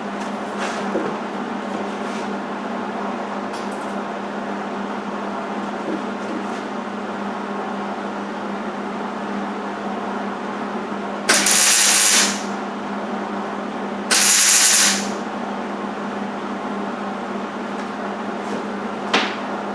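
Two short bursts of MIG welding on thin sheet steel, each about a second long and about two seconds apart: the Hobart 140 MIG welder's arc crackling and hissing as stitch welds are laid. A steady hum runs underneath throughout.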